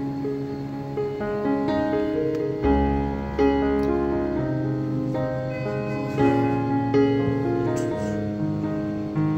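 Background music led by piano, with held notes that change every second or so; a deep bass note comes in about three seconds in and holds for a second and a half.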